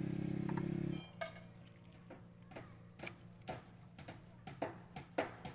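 A low, steady engine hum that cuts off suddenly about a second in, followed by a series of sharp, irregular ticks, about three a second, growing louder near the end.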